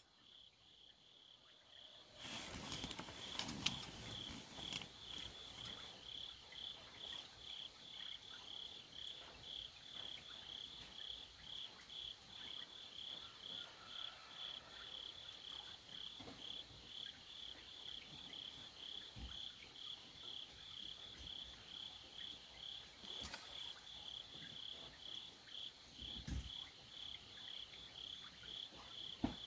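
Crickets chirping in a steady, even pulse, with a few scattered knocks and rustles. The loudest knocks come about three and a half seconds in and just before the end.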